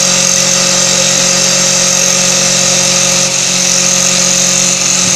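CNC wood lathe running: a steady machine hum made of several constant tones, with a strong, steady high hiss over it.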